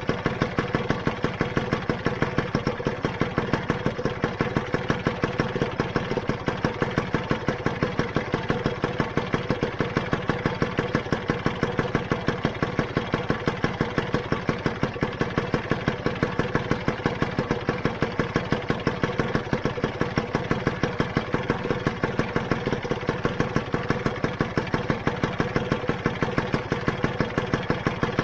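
Rebuilt Lambretta GP's single-cylinder two-stroke engine idling steadily with an even, regular beat.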